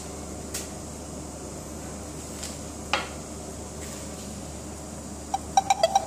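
Metal spoon knocking and tapping against a slate serving plate while spreading mascarpone: one sharp knock about halfway, then a quick run of about six ringing taps near the end, over a steady fan-like hum.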